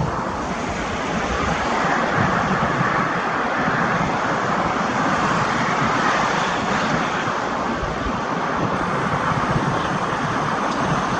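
Steady rushing noise of airliner engines heard from the runway end, even throughout, with a faint high whine joining near the end.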